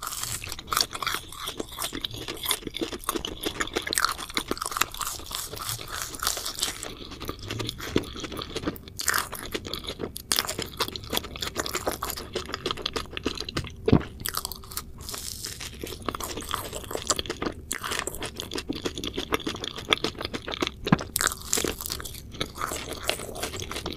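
Close-miked crunching and chewing of a purple sugar-coated sweet, a dense run of crisp crackles with one sharper crunch about halfway through.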